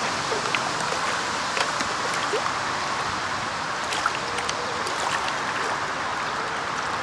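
Several radio-controlled racing boats running flat out, their small engines blending into a steady buzzing hiss along with the spray of their hulls on the water.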